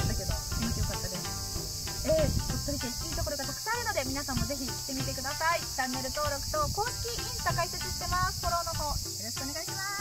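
Steady high-pitched drone of an insect chorus, with a group of people talking over it.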